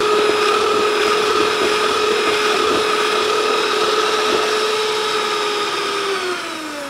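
Electric hand mixer running steadily, its beaters whipping margarine with sweetened condensed milk in a bowl. Near the end the motor's whine falls in pitch as it winds down.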